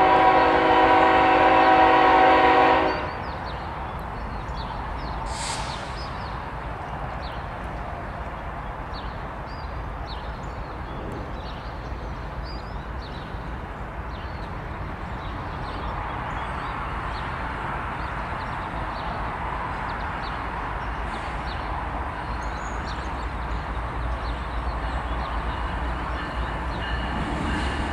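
Air horn of a CSX GE ES44AH freight locomotive sounding one long chord of several notes, cutting off about three seconds in. Then the steady rumble of the approaching freight train's diesel locomotives, growing a little louder toward the end.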